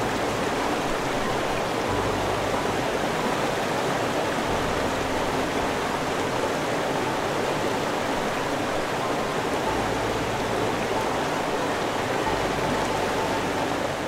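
Steady rush of a stream cascading over rocks, an even waterfall noise that holds at one level throughout.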